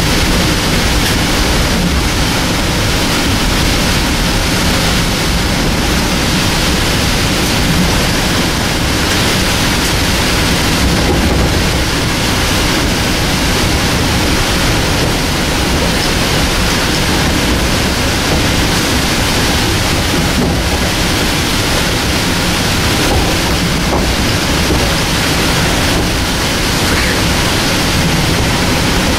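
Steady, loud rushing noise of a Metro-North electric commuter train running at speed, heard from on board.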